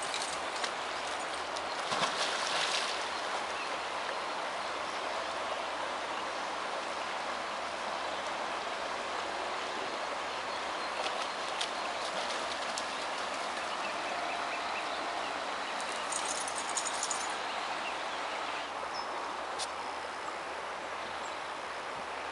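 River water flowing, a steady rushing, with a few brief rustles or crackles over it.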